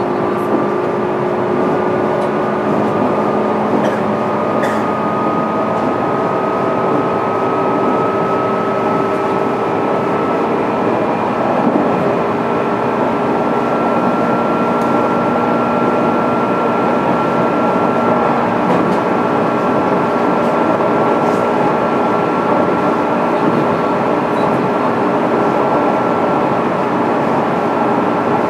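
Onboard running sound of a JR East 205-series electric train, heard in motor car MoHa 205-612: a steady rumble of wheels on rail under the whine of the traction motors and gears. The whine rises slowly in pitch over the first half, then holds steady.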